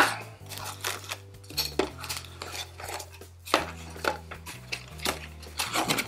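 A small cardboard box being opened and handled on a tabletop: irregular taps, scrapes and light rustles as the flaps are opened and the contents are lifted out.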